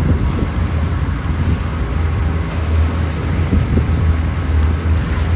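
Boat engine running steadily with a low drone, wind buffeting the microphone.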